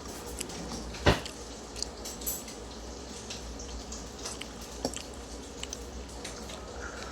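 Cutlery clinking against a plate during a meal: one sharp clink about a second in, then a few light taps and scrapes, over a steady low background hum.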